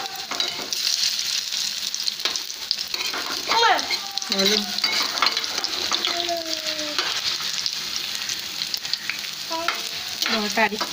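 Vegetable fritters (bora) sizzling steadily as they deep-fry in hot oil in a kadai, while a long metal spatula scrapes and turns them in the pan.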